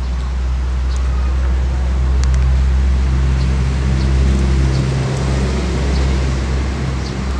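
Steady low engine rumble with a faint hum. A few light clicks sound over it as snail shells are set on the wire grill.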